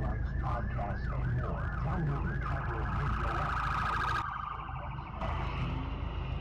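Police car siren in yelp mode, rising and falling about four times a second, then a steadier high tone that stops about four seconds in, over low traffic rumble.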